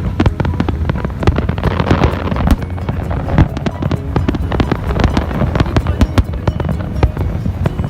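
Fireworks display: a dense, continuous barrage of rapid bangs and crackles with no let-up.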